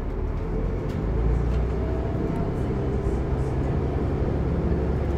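Bus engine running, heard from inside the passenger cabin: a steady low drone with road and body noise, growing a little louder about a second in.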